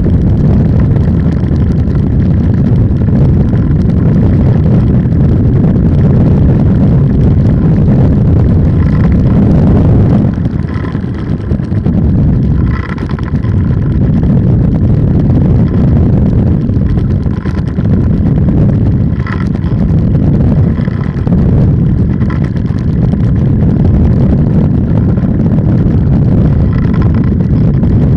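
Polini 190 single-cylinder two-stroke engine of an ultralight trike running loud and steady, with a brief dip in level about ten to thirteen seconds in.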